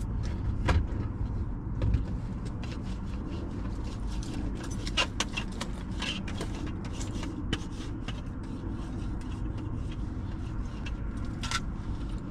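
Scattered clicks, knocks and scrapes of someone reaching into a car and handling things inside it, over a steady low rumble.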